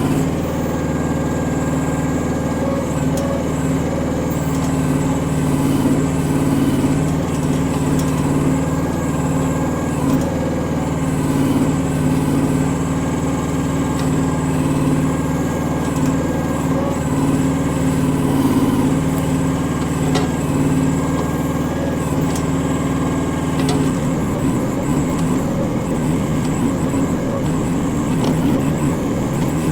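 Chinese micro excavator's engine running steadily while it digs out small stumps. A higher whine dips now and then, and there are a few faint knocks.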